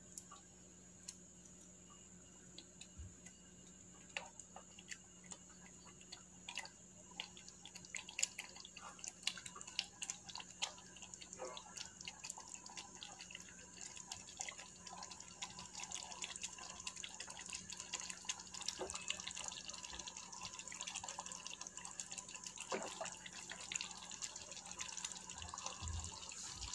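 Thick masala gravy bubbling in a kadai: faint, irregular little pops and plops, growing busier and a little louder after the first several seconds.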